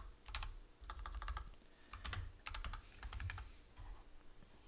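Computer keyboard typing in several short bursts of keystrokes with brief pauses between.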